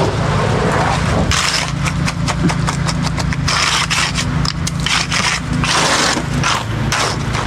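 Repeated scraping strokes of tools working through wet concrete, over a steady engine running underneath.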